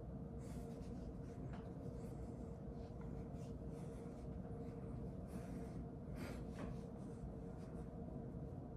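Faint rustling and scattered light clicks of hands working a short necklace chain and its clasp at the back of the neck, over a steady low hum.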